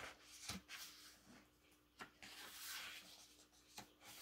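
Faint papery rustle of glossy photobook pages being turned by hand, with a few soft clicks as the pages settle.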